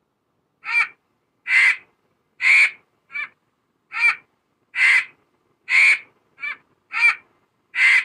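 Lappet-faced vulture calling: a run of about ten short calls, each well under half a second and spaced less than a second apart, two of them shorter and quieter than the rest.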